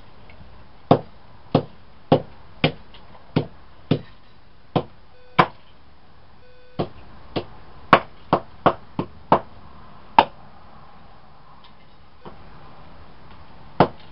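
Rusty hammer striking a Samsung Juke flip phone, sharp irregular blows, roughly two a second, about sixteen in all, then a pause of a few seconds before the blows start again near the end.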